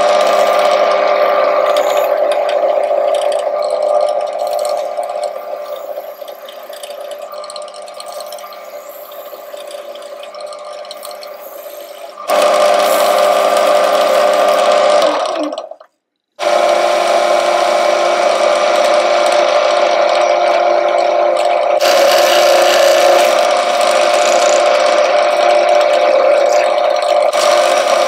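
Woodturning lathe running steadily with a humming motor. The hum turns quieter for several seconds, comes back up, cuts out briefly about halfway through, then runs on.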